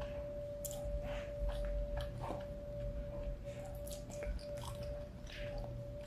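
Close-up mouth sounds of chewing rice and ground beef: wet smacks and clicks. A plastic fork scrapes in a foam bowl in the second half. A steady faint tone hums underneath.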